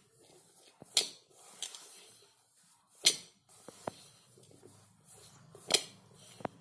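Hands rubbing and squeezing a crumbly gram-flour, spice and oil mix in a stainless steel bowl, a soft rustle broken by about five sharp clinks of the hand knocking against the metal bowl.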